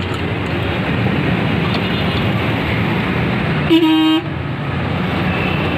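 Steady road traffic noise with a single short honk of a vehicle horn, about half a second long, a little under four seconds in.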